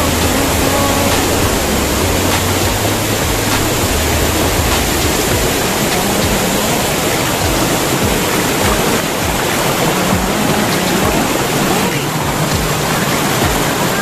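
Small waterfall pouring over boulders into a rock pool: a loud, steady rush of water.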